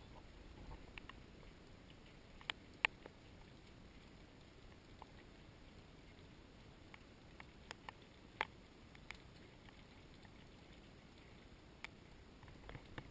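Quiet background with a few scattered sharp ticks and clicks, the loudest a pair about two and a half to three seconds in and another around eight seconds in.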